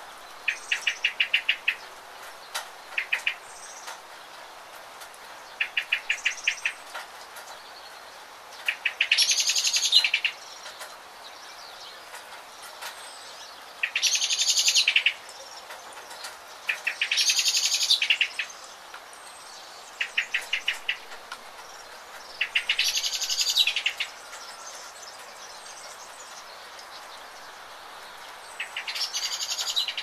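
Steady rain with songbirds singing over it: several short, rapid trills, and five louder songs of about a second each, a few seconds apart.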